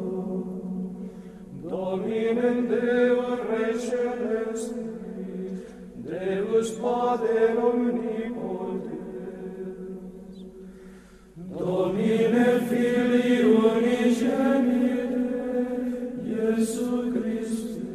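Sung chant in slow, held notes, in three phrases that each begin strongly and fade away.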